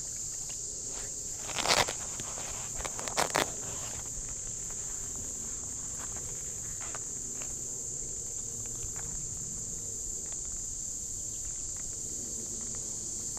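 Steady high-pitched chorus of insects such as crickets, with two brief scuffing noises about two and three seconds in.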